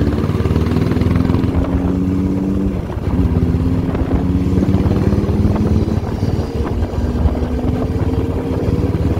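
Motorcycle engine heard from the rider's own bike, its pitch climbing steadily as it accelerates. The pitch drops back about three seconds in and again near seven seconds as the rider shifts up a gear, then climbs again.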